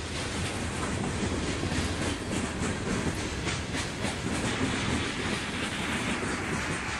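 A freight train's covered gondolas and covered hoppers rolling past at track speed: steady wheel-and-rail rumble with the clickety-clack of wheels over rail joints, and a higher hiss building in the second half.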